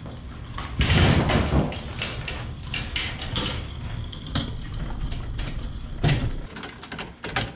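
Metal clanks, knocks and rattles of a kayak trailer being handled: pulled by its tongue on a small jockey wheel across concrete and moved about. The loudest clatters come about a second in and about six seconds in, with a quick run of knocks near the end.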